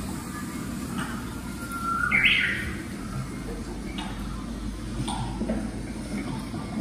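A short, loud, rising chirp or squeak about two seconds in, over a steady low rumble and hum, with a few faint clicks later on.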